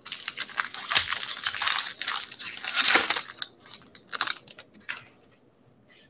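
Plastic wrapper of a baseball card pack being torn open and crinkled: a dense crackle for about three and a half seconds, then a few lighter rustles.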